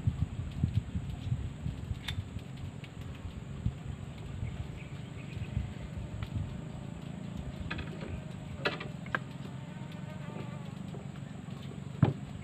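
A fly buzzing close to the microphone, its drone rising and falling unevenly. A few sharp knocks sound against it, the loudest near the end.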